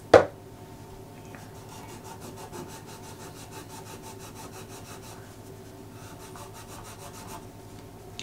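A sharp knock just after the start, then metal polish being rubbed onto corroded metal on a Ricohflex TLR camera in quick back-and-forth strokes, about five a second, to clean off the corrosion.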